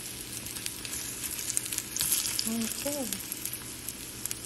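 Battered banana slices sizzling and crackling as they fry in shallow oil in a skillet, with a denser flurry of crackles about two seconds in.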